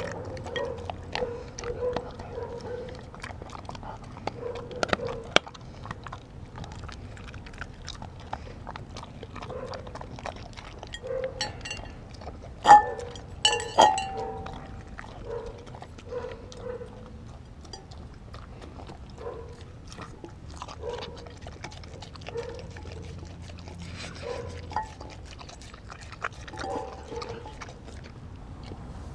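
Kelpie–German Shepherd mix dog chewing and licking up the last of her raw food from a glass bowl: wet lapping and mouth sounds with many small clicks of teeth and tongue against the glass. About halfway through come two sharp knocks, the second with a brief ring, as the glass bowl is bumped.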